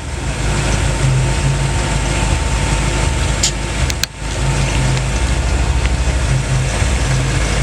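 A car engine idling steadily, a low even rumble, with two small clicks about three and a half and four seconds in.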